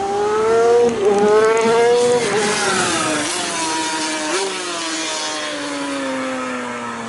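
500cc two-stroke Grand Prix racing motorcycle at high revs. Its pitch climbs and drops sharply at gear changes about one and two seconds in, then falls slowly and steadily through the second half.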